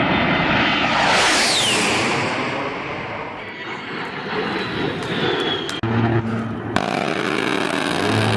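Logo-intro sound effects: a loud rushing whoosh that swells about a second in with a falling whistle through it, then a deep steady tone, a sudden hit and the deep tone again near the end.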